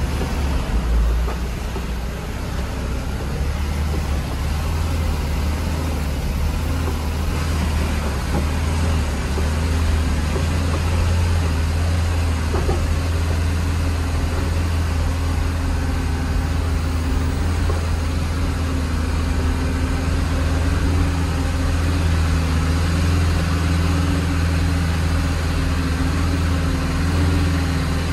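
Engine and tyre noise of a car heard from inside the cabin while driving over a rough dirt road: a steady low drone.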